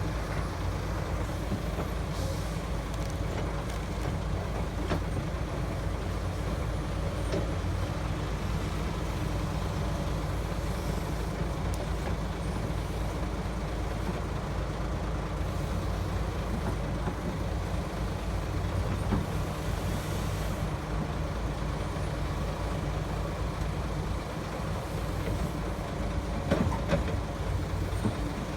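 Heavy diesel engines of an excavator and a dump truck running steadily, a low drone throughout, with a few short knocks, clustered near the end.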